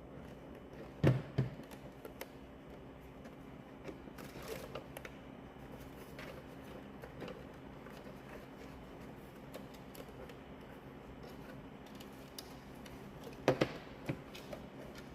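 Sharp plastic knocks and clicks as instrument cluster parts are handled and pressed into the housing: two about a second in, a quick group of three near the end, with faint handling rustle in between over a low steady hum.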